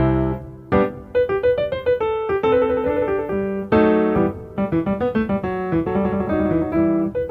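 Background piano music: a melody of quick notes over chords.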